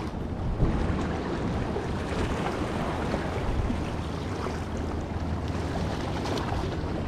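Wind buffeting the microphone over small waves splashing and lapping against jetty rocks, a steady rushing noise.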